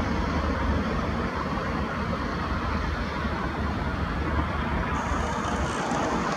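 Steady low rumble with hiss of outdoor background noise, even throughout with no distinct events.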